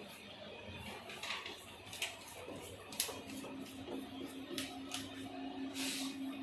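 Butter paper rustling and scraping under hands and a pen, in short irregular strokes, with one sharp click about three seconds in. A steady low hum comes in around the same point.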